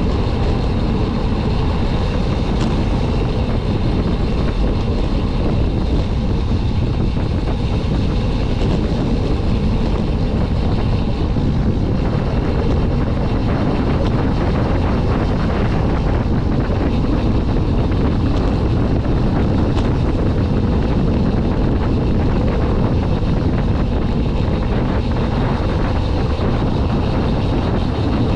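Steady, loud wind rushing over the microphone of a camera riding on a road bike at descending speed.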